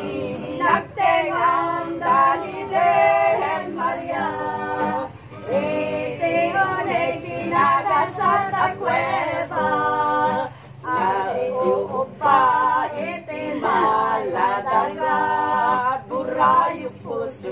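A small group of women singing an Ilokano Christmas carol together in loose unison to a strummed acoustic guitar, phrase after phrase with brief breaths between.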